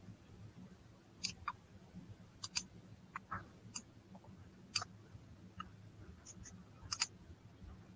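Faint, irregular small clicks, about a dozen of them, over a low steady hum: background noise picked up by an open computer microphone in an online meeting.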